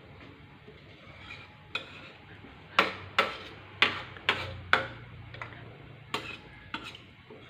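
Stirring a large cooking pot with a utensil knocking against it: about eight sharp clacks, most of them close together in the middle.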